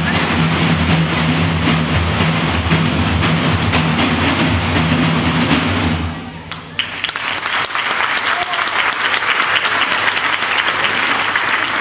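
An ensemble of large frame drums playing a fast, dense low rumble that stops abruptly about six seconds in. A moment later the audience breaks into applause.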